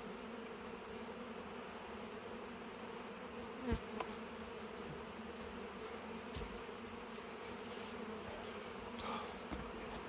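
Many honey bees flying around an opened hive, buzzing in a steady hum, with a brief louder buzz about four seconds in.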